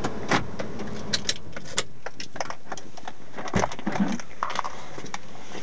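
A run of short, sharp clicks and light rattles inside a car, with one duller knock about three and a half seconds in, over a steady background hum.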